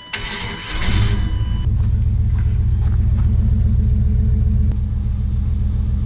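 1996 Chevrolet Suburban's 5.7 Vortec V8 starting under a second in, then idling steadily with cylinder one's spark plug lead pulled off at the distributor, a test to find which cylinder is misfiring. With that lead off the idle sounds about the same.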